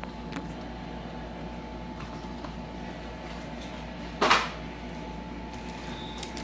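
Trading-card packaging being handled while a hobby box is opened: one short crinkle or tear about four seconds in, over a steady background hum.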